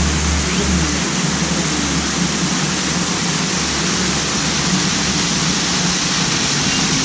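Waterfall: a loud, steady rush of falling and splashing water.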